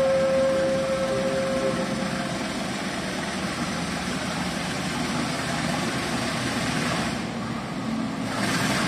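Diesel locomotive engine running steadily. A held tone fades out about two seconds in.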